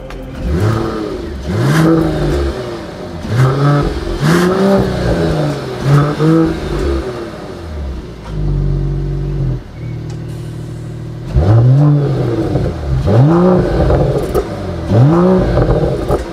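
Mercedes-AMG GT 53's turbocharged 3.0-litre inline-six, through its AMG Performance exhaust with the valves open in Race mode, being revved repeatedly while standing still. There is a run of quick revs, a few seconds settled at idle partway through, then more revs, with a few sharp cracks among them.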